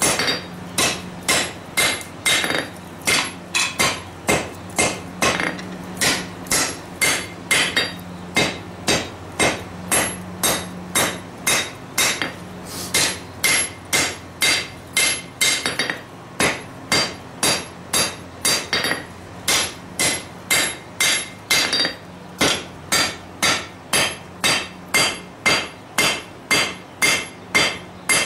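Hand hammer striking hot lawnmower-blade steel on an anvil in a steady rhythm of just under two blows a second, each blow with a short metallic ring: rough-forging the blade shape.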